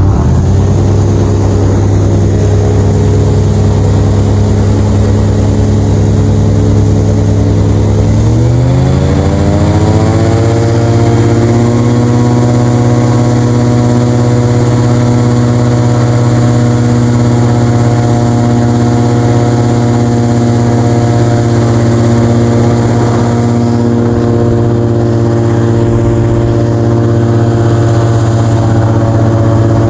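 Airboat (fan boat) engine and propeller running at a steady speed, then revving up about eight seconds in and holding at a higher pitch.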